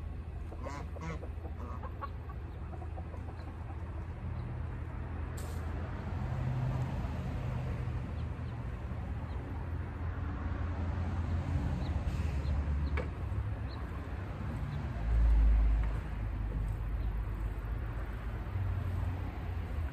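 Chickens clucking faintly while a shovel scrapes through the yard dirt, over a steady low rumble. A louder low bump comes about fifteen seconds in.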